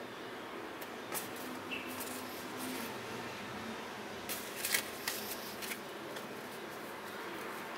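Paper playing cards handled by hand: scattered light clicks and flicks as cards slide and snap against each other, the sharpest a little before five seconds in, over a steady background hiss.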